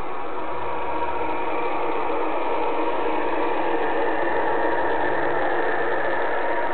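LGB garden-scale model train running past: the locomotive's electric motor whirring and the wheels rolling on the rails, a steady running noise with a faint steady whine.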